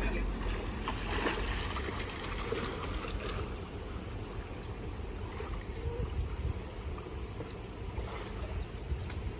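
Swift stream water rushing and swirling through a rock-walled pool, with a few light splashes from a swimmer in the first few seconds.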